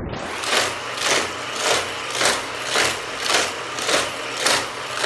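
Hot Wheels motorized track booster running with a faint hum, die-cast toy cars whooshing through its spinning wheels about twice a second as they lap the figure-eight loops.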